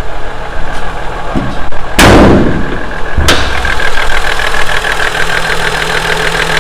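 Toyota 2JZ-GE straight-six idling cold with a fast, even clatter that sounds almost like a diesel. The owner suspects the VVT-i cam gear; the noise turned out to need a valve adjustment. A loud clunk about two seconds in and a sharp click a second later come from the hood being opened.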